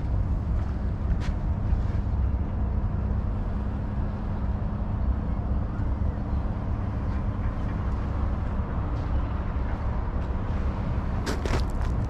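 Steady low rumble with a faint steady hum, typical of a vehicle engine or machinery; a few sharp clicks near the end.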